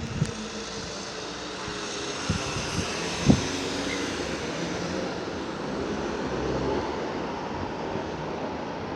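The last of a fire siren winding down, its pitch falling and fading out within the first second, then steady vehicle noise with a few sharp knocks, swelling in the middle.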